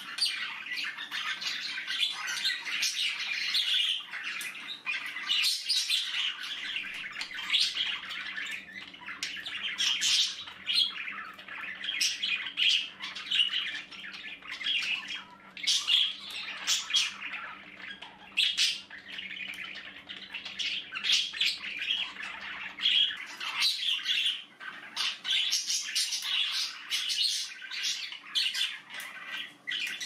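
Pet budgerigars chattering continuously, with frequent short, sharp squawks.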